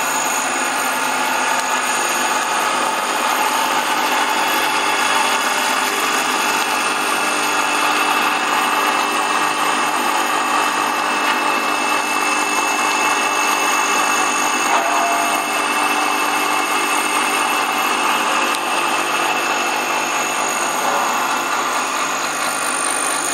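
A colloid mill grinding ginger into paste, running steadily with an even, loud mechanical whine.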